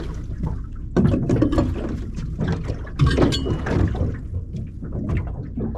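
Water slapping and sloshing against the hull of a small aluminium boat, with irregular knocks and rustles and two louder thumps about one and three seconds in.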